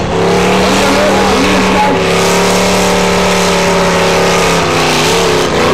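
Holden VH Commodore doing a burnout: the engine is held at high revs at a steady, slightly wavering pitch over the loud hiss of the spinning, smoking rear tyre.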